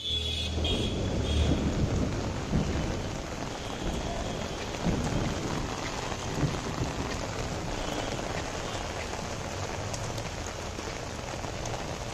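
Heavy rain pouring onto a street and pavement, a dense steady hiss of water with a low rumble underneath, strongest in the first couple of seconds.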